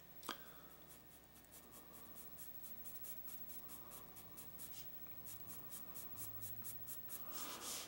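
Graphite pencil scratching on paper in quick, short strokes, about three a second, with one light tap of the pencil just after the start.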